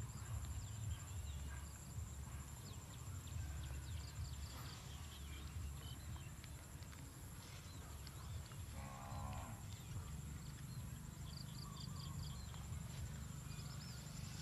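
Open-field ambience: a low rumble, a steady high insect drone and scattered short bird chirps. About nine seconds in, a single drawn-out low animal call, tagged as cattle mooing.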